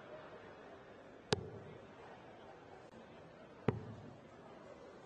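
Two darts striking a bristle dartboard, sharp single thuds about two and a half seconds apart, over a low steady hall background.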